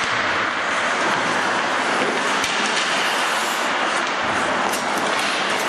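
Steady, even noise of an ice hockey game in an indoor rink, where the spectators and the skates on the ice blend into one hiss, with a couple of faint knocks.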